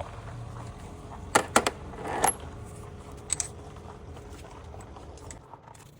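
Light metallic clinks of small bolts and hand tools being handled: two quick clicks about a second and a half in, a clink with a short ring just after two seconds, and another tap about a second later.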